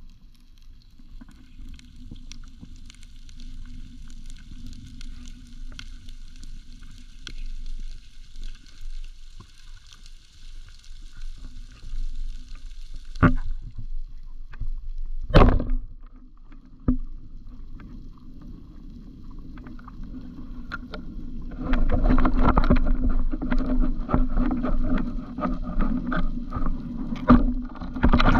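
Underwater noise as heard through a freediver's camera housing: a steady low rumble of moving water with faint scattered crackles, two sharp knocks near the middle, and much louder churning water with many clicks over the last quarter as he swims.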